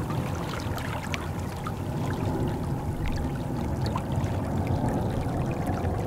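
Small waves lapping and trickling among shoreline rocks, with many small splashes over a steady low rumble.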